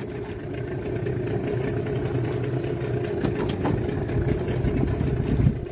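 Boat engine running at a steady idle, a low even hum, with a few faint clicks about halfway through.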